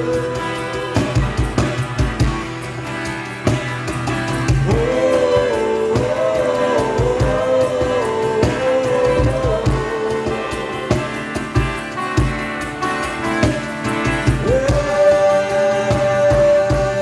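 A band playing rock music, an instrumental passage with a steady drum beat and bass under a lead melody that bends up and down in pitch.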